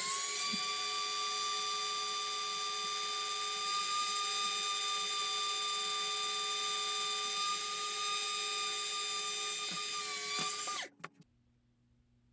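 Small rotary hobby drill spinning up, running at a steady high whine for about ten seconds, then winding down near the end, drilling light holes into a plastic model hull.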